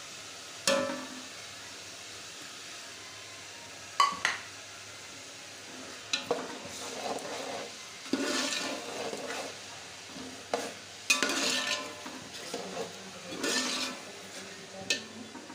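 Tomato slices frying in hot oil in a steel pot, with a steady sizzle under a slotted metal spoon that stirs and scrapes in several long strokes and clinks sharply against the pot a few times.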